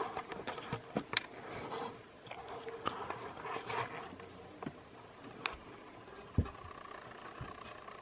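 Irregular scrapes, rustles and clicks of the camera being handled and someone moving about, over a faint steady hum.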